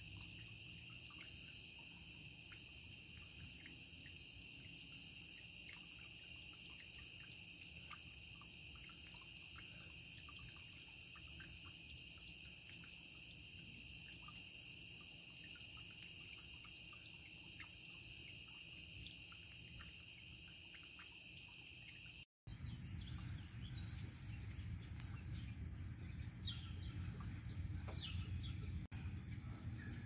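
A steady chorus of night insects trilling at two high pitches, over faint splashing and dripping from a small solar fountain. About two-thirds of the way through the sound cuts abruptly to a daytime outdoor background with a few short bird chirps.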